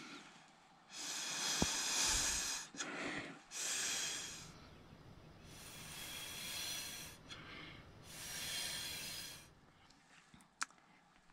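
A person blowing hard through a drinking straw to push wet coffee paint across paper: four long puffs of breath, each one to two seconds, then a light click near the end.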